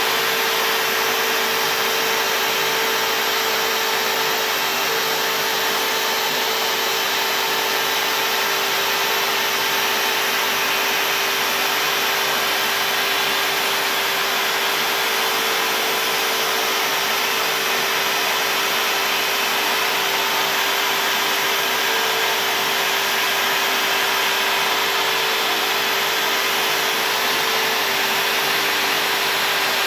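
A CNC router's spindle runs steadily while the bit cuts lettering into a board, with a steady whine over the hiss of the dust-extraction vacuum drawing chips through the hose at the bit.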